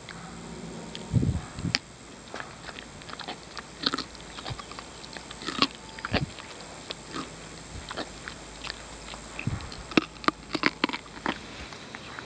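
Horses crunching carrots close up, an irregular run of sharp bites and crunches. A few low thuds come in between: about a second in, around the middle and late on.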